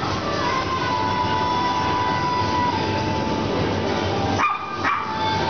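Background music with long held notes, breaking off briefly near the end.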